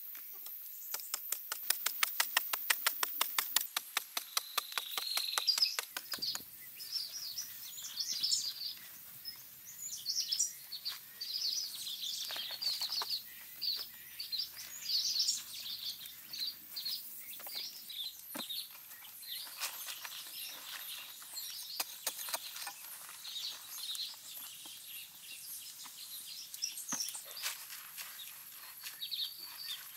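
Jungle birds chirping and calling throughout, with a fast, even ticking trill during the first six seconds or so.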